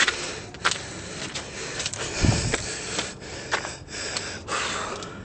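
Irregular footsteps and knocks from a handheld camera being carried over rocky steps, over a steady outdoor hiss.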